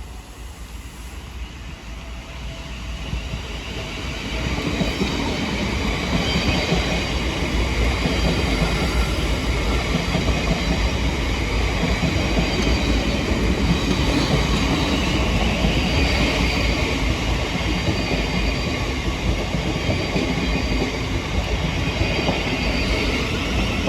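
Southeastern Class 707 electric multiple unit, two units coupled, running into the platform: the motors and the wheels on the rails grow louder over the first few seconds, then hold steady as the carriages go by, with some rail clatter and faint wheel squeal.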